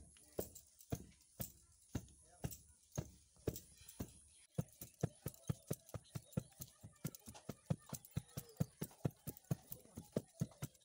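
Wooden pestle pounding soaked rice into flour in a mortar: a steady run of dull knocks, about two a second at first, then about four a second after a short break a little over four seconds in.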